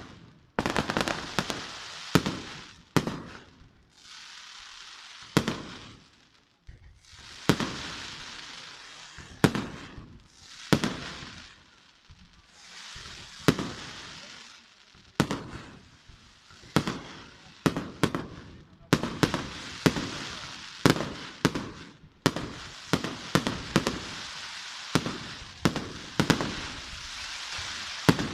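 Fireworks display: aerial shells bursting in sharp bangs at an irregular pace, with crackling and hissing between them. The bangs come in quicker clusters in the second half.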